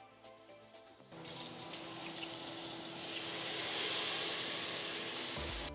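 Kitchen faucet running into the sink: a steady rush of water that starts about a second in and cuts off sharply near the end, with background music.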